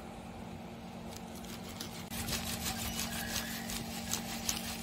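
Moulding sand pouring into a flask of stacked steel rings while a sand mould is built, making a gritty patter of many small ticks from about two seconds in. A steady low hum runs underneath.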